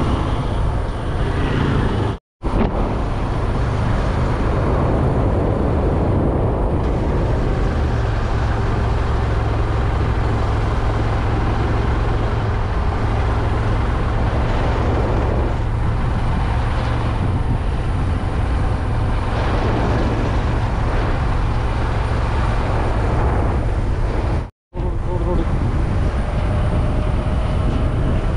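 Steady wind rumble on the microphone over the running noise of a vehicle moving along a wet road. The sound cuts out completely twice, briefly: about two seconds in and a few seconds before the end.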